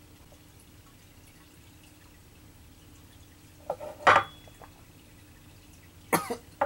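Small glass shot glasses set down on a wooden table about four seconds in, a sharp clink with a brief ring. A second short, sharp sound comes near the end.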